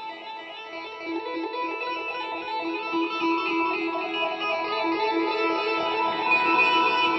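Soundtrack music: a guitar playing a quick figure of repeated plucked notes, growing steadily louder, without vocals.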